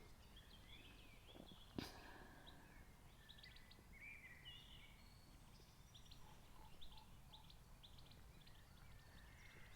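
Faint birdsong: scattered short chirps and whistles from small birds over a quiet low background hum, with a single soft tap about two seconds in.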